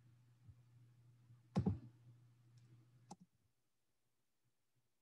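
Computer mouse clicks advancing a presentation slide: a click about a second and a half in, a faint one after it and a sharper click near three seconds, over a faint low hum that drops out after the last click.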